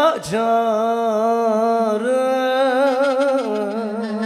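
A male voice holds a long, wavering sung note in a Turkish folk song (türkü), drawn out between words of the verse, with instrumental backing. The note drops a step a little over three seconds in.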